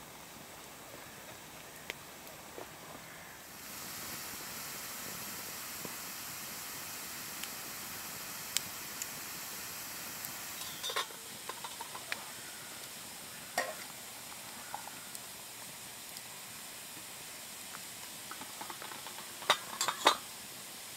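Open wood campfire hissing and crackling under a hanging camp kettle, the hiss growing louder a few seconds in. Later come a few sharp metal clinks, loudest near the end, as a steel camping mug and pot are handled.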